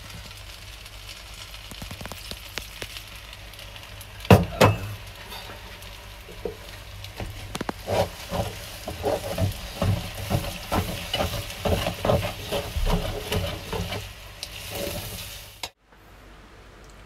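Spaghetti being tossed with tongs in a stainless steel pot, the tongs clattering loudly against the pot about four seconds in, then knocking and scraping in quick repeated strokes. Under it runs a steady low hum and a faint sizzle from the pan.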